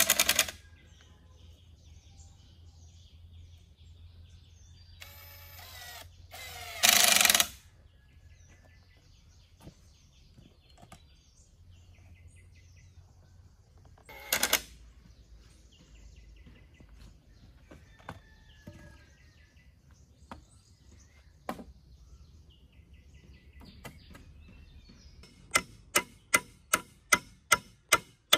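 Hammer driving a nail into a peeled wooden pole: a steady run of sharp strikes, about four a second, starting near the end. Before that come a few separate knocks and one longer noisy burst a few seconds in, over faint birdsong.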